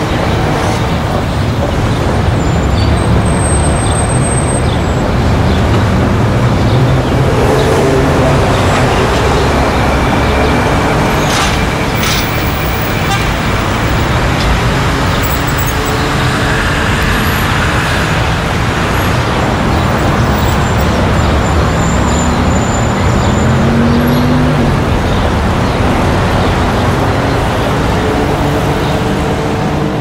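City street traffic: a steady mix of car and bus engines running and passing, their pitch rising and falling now and then, with a few brief high squeaks and short knocks.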